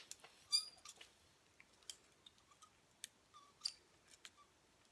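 Faint, scattered clicks and small handling sounds from a clip curling iron, its spring clamp opening and closing as hair sections are wound and released.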